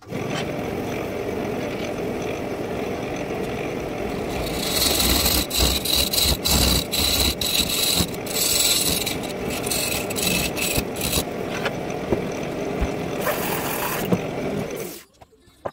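Wood lathe spinning a black walnut bowl blank while a bowl gouge cuts into the inside, a scraping, hissing cut that grows louder and breaks on and off from about five seconds in until near the end. The sound stops suddenly near the end.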